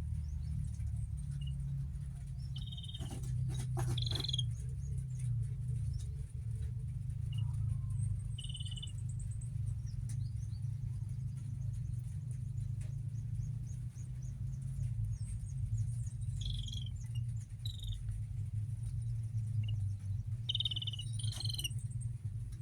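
A small caged bird giving short chirps now and then, about seven in all, with a few soft clicks, over a steady low hum.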